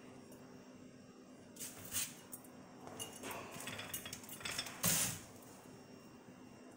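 Glazed ceramic wall tiles clinking and scraping against one another as one is taken from a loose stack, in a scatter of short clicks with the loudest clink near the end.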